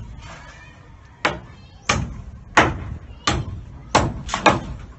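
A hammer striking the timber of wooden formwork and scaffolding. The sharp blows start about a second in and come about one every two-thirds of a second, with a quicker run of three near the end.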